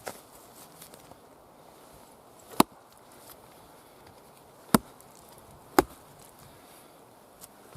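Three sharp strikes of a Wetterlings Hudson Bay axe splitting a round of wood, the last two about a second apart.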